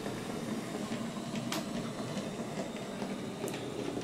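Hattons OO gauge Andrew Barclay 0-4-0 saddle tank model locomotive running slowly along the layout track: a steady whir from its small electric motor and gears, with a couple of sharp clicks as the wheels cross rail joints and points. The model is on its first run and not yet oiled.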